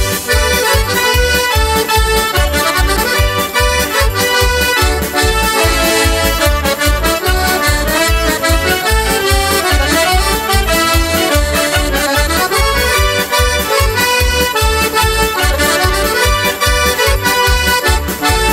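Instrumental break in a Slovak folk song: accordion playing the melody over a steady, quick bass beat, with no singing.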